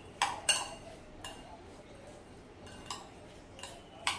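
Chopped onion and tomato being mixed by hand in a glass bowl, with about six sharp, ringing clinks as metal bangles and a ring knock against the glass.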